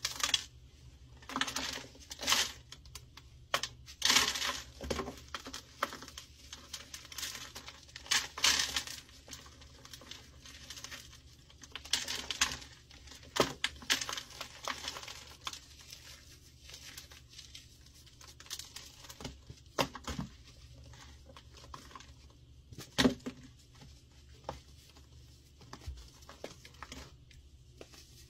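Hands crushing and crumbling a dried block of baking soda and gym chalk with a dry cornstarch crust: irregular crunches and crackles as chalky chunks break, with softer crumbling and rustling between.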